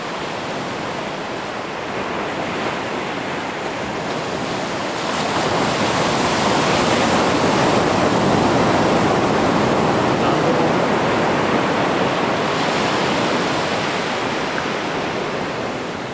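Ocean surf washing on a beach, swelling louder about five seconds in and easing off toward the end.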